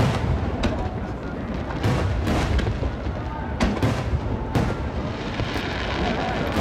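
Large aerial firework shells bursting one after another: about ten sharp booms, some only a fraction of a second apart, over a continuous low rumble.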